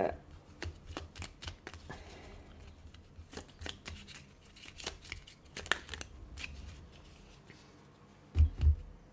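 A deck of tarot cards being shuffled and handled, a run of soft flicks and taps. A little after eight seconds come two dull low thumps, the loudest sounds here.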